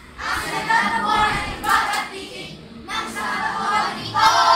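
A class of children's voices performing a choral piece in unison, in several phrases with short breaks, the loudest near the end.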